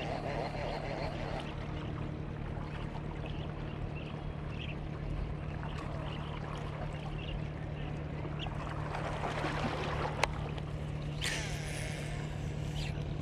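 Steady low drone of a boat engine running on the water. About ten seconds in comes a sharp click, then a short rushing hiss.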